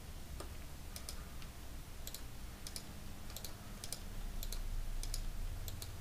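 Computer keyboard keys and mouse buttons clicking at irregular intervals, some clicks in quick pairs, over a steady low hum.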